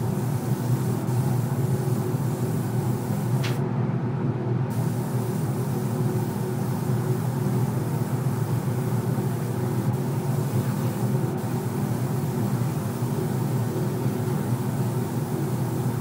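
Steady mechanical drone with a rushing hiss of air over it; the hiss cuts out for about a second near four seconds in.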